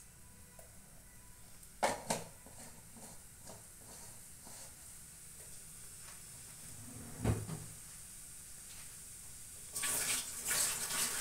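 Hot oil with cumin seeds frying in a non-stick kadai: a faint steady sizzle. Two sharp clicks come about two seconds in, a dull knock past the middle, and a louder noisy burst of sizzling near the end.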